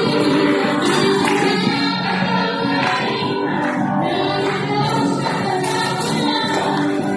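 Praise and worship music: several voices singing together over instrumental backing, steady throughout.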